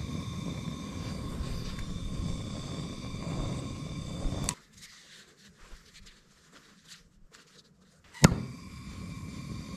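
Handheld gas torch flame running with a steady low roar, shrinking heat-shrink tubing over a soldered wire splice. About four and a half seconds in it cuts off to near quiet, and just after eight seconds a sharp pop as the torch lights again, then the flame's roar.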